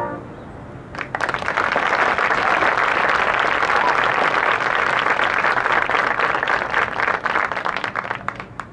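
Audience applauding: dense clapping starts about a second in, after the marching band's last chord has ended, and thins out near the end.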